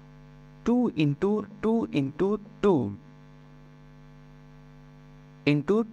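Steady electrical mains hum, heard on its own in the pauses, with a man speaking in short phrases over it early on and again near the end.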